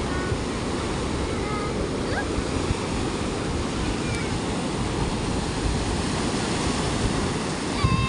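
Sea surf breaking and washing up a sandy beach as a steady rushing noise. A loud high-pitched call starts right at the end.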